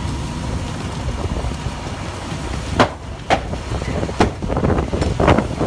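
A big structure fire burning, with a steady low rumble under it and a string of sharp pops and cracks from about three seconds in, coming thicker toward the end.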